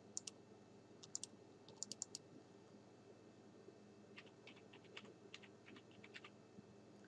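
Faint computer keyboard typing: a few scattered key clicks in the first two seconds, then a quicker run of keystrokes about four to six seconds in, as a password is retyped into a login form.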